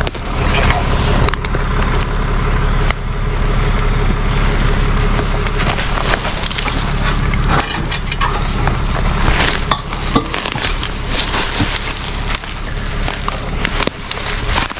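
Brush and branches crunching and snapping underfoot as someone scrambles down a brushy embankment, with a steady low engine hum underneath.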